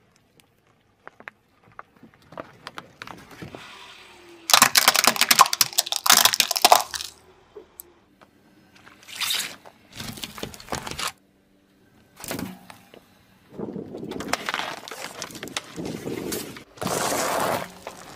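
A car tyre rolling slowly over small objects on asphalt, crushing them: plastic balls, a bundle of coloured pencils and candy-coated chocolates. The sound comes as loud crunching and cracking in three separate bursts, with quiet gaps between.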